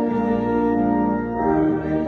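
A hymn played on a church organ in sustained chords, moving to a new chord about one and a half seconds in.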